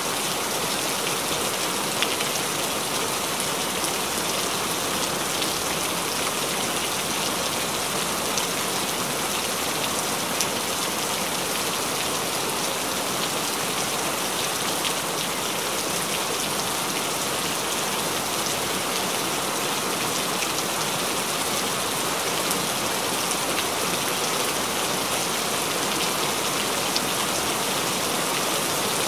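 Steady rain falling and splashing, an even hiss with a few sharper drop ticks scattered through it.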